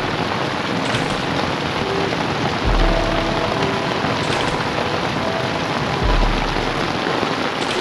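Heavy rain pouring steadily onto a flooded street, with a deep low swell about every three to four seconds.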